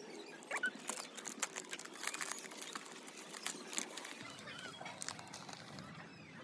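Plastic packet crinkling and crackling as it is handled and its contents shaken out over the soil, busiest for the first four seconds and quieter after.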